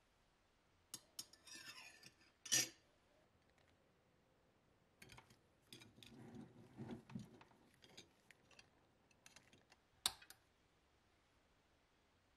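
Nickel anode plates and alligator clips clinking and clicking against a glass jar as they are fitted over its rim, with soft handling noises between. A few sharp clinks stand out, the loudest about two and a half seconds in and another near the end.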